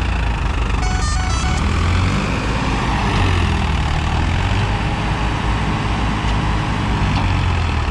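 Farmtrac 45 tractor's three-cylinder diesel engine running steadily under heavy load, with a strong low rumble, as it strains to haul a water tanker through loose sand and fresh soil where its tyres get little grip.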